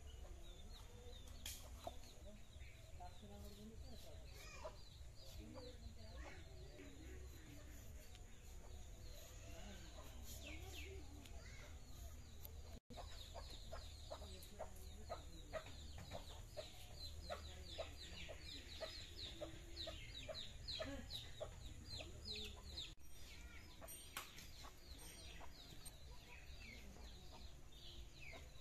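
Faint bird calls: many short, high, falling chirps, few at first and coming thick and fast through the second half.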